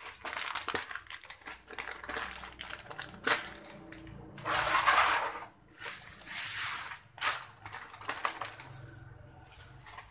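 Plastic packet of groundbait powder crinkling and rustling as it is handled and shaken out over bait mix in a plastic basin. Irregular crackles throughout, with the loudest, longest rustle about halfway through.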